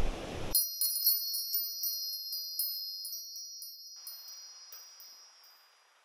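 A high, tinkling chime: a cluster of light strikes about half a second in, then several high tones that ring on and fade slowly away over about five seconds. Just before it, the stream's rushing noise cuts off abruptly.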